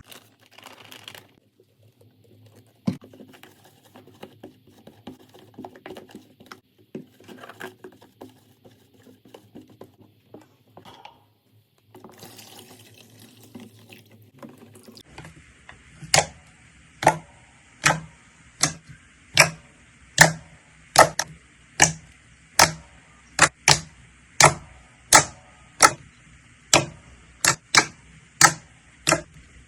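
Slime being handled, with faint, irregular wet crackles and clicks. About halfway through, a regular run of loud, sharp pops starts, about one and a half a second.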